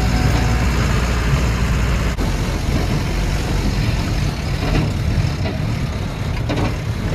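Truck engine running with a steady rumble of cab and road noise on a rough, stony mountain road climbing uphill, heard from inside the cab, with a few brief rattles and knocks.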